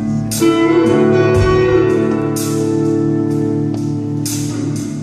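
Live electric guitar and drums in a slow song's instrumental gap: a guitar chord struck about half a second in rings on, over drum and cymbal hits about once a second. Recorded through a phone's microphone from the audience.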